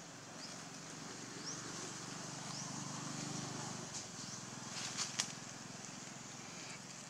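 Outdoor forest ambience: a few short rising chirps, a low steady hum for the first half, and two sharp snaps about five seconds in.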